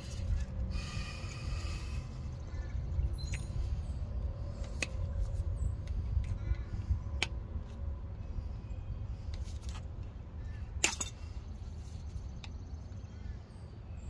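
Needle-nose pliers clicking and scraping on the metal pivot washer of a drum brake shoe's parking-brake lever as the washer is pried and peeled away. A few sharp metal clicks, the loudest near the end, over a steady low rumble.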